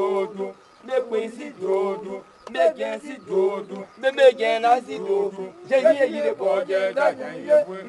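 A man chanting in a half-sung voice, short phrases broken by brief pauses.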